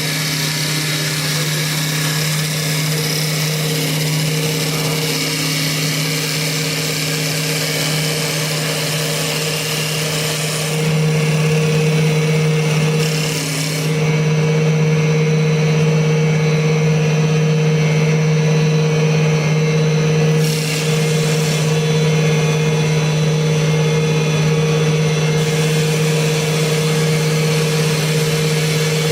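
CNC wood lathe running an automatic turning cycle: a steady spindle-motor hum with the cutter working the spinning wood. The sound shifts and gets a little louder about a third of the way in, then eases slightly near two-thirds.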